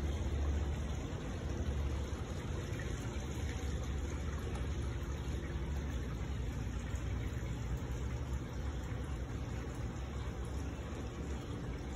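Steady splashing of a small stream of water falling from a wall spout into a swimming pool, over a low, even rumble.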